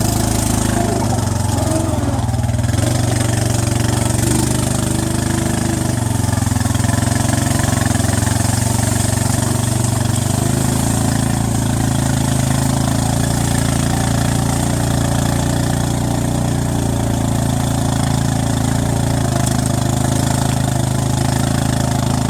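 An engine running steadily, its note shifting to a different pitch about halfway through.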